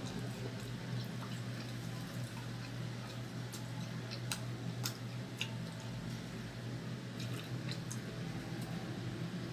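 Close-miked eating of fried chicken: scattered wet mouth clicks and smacks of chewing over a steady low hum.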